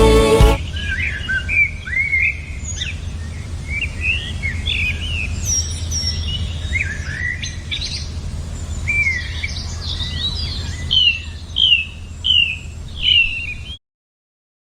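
Songbirds chirping and calling: many short slurred notes, with a run of four quick down-slurred notes near the end, over a steady low hum. A gospel song cuts off in the first half-second, and all sound stops suddenly about a second before the end.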